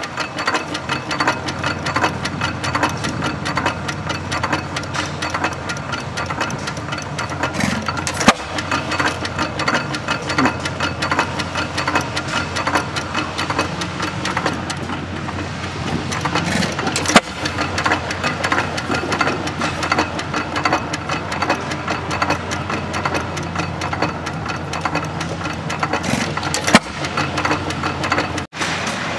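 Antique Sandwich stationary gas engine with twin flywheels running, a rapid, even mechanical clatter, with a sharper, louder crack about every nine seconds.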